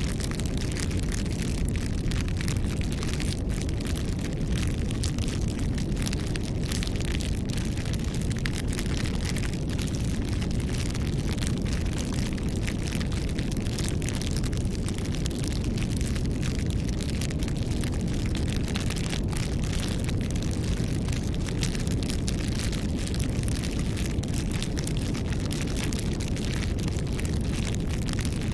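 Campfire crackling: frequent sharp crackles and pops over a steady low rumble of the burning fire.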